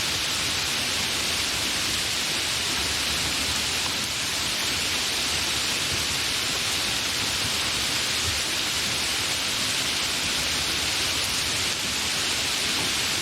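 Steady, continuous rain, an even hiss with no separate drops or thunder standing out.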